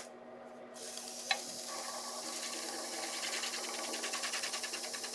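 Wood lathe running slowly, about 600 RPM, its motor humming steadily while a cherry chair rung spins between centres. A rhythmic rubbing sets in from about two seconds, pulsing several times a second as the turning wood rubs under the turner's hands. A single sharp tick comes about a second in.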